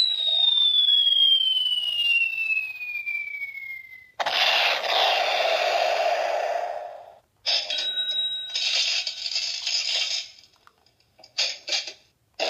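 Toy sound-effects machine playing its canned effects: a loud whistle falling steadily in pitch for about four seconds, cut off by a sudden noisy burst lasting a few seconds, then another noisy effect and a few short choppy bursts near the end.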